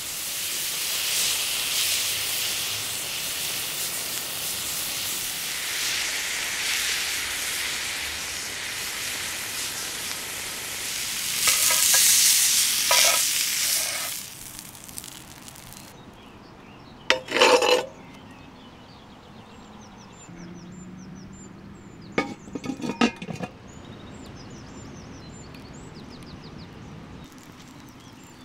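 Tri-tip steak sizzling and hissing on a grill grate over open flames, loudest about twelve seconds in, then dying down halfway through. Afterwards metal tongs and spatula clatter against the grate twice, with faint bird chirps.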